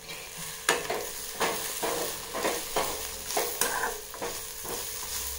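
A metal spoon stirring and scraping grated coconut, dried red chillies and shallots as they roast in a little coconut oil in a metal pan. The spoon hits and scrapes the pan two or three times a second over a light frying sizzle.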